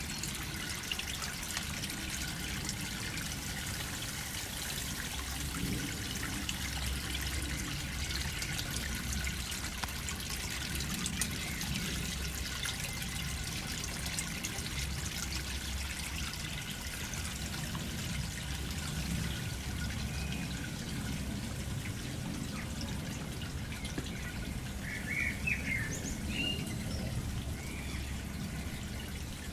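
Water trickling steadily. A bird chirps a few times near the end.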